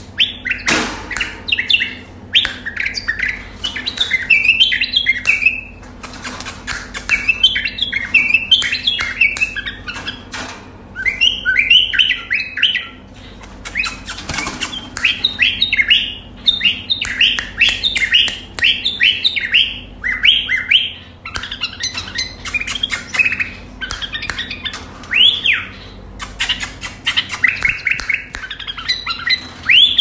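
White-eared bulbul (Iraqi bulbul) singing: loud phrases of quick rising and falling chirping notes, each phrase a second or two long, repeated with short pauses between them.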